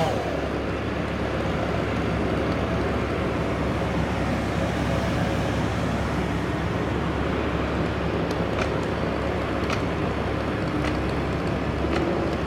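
Chainsaw engine idling steadily between revs, with a few faint clicks about two-thirds of the way in.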